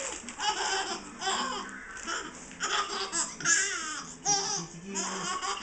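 Baby laughing in repeated short bursts, with a loud high-pitched squealing laugh about halfway through.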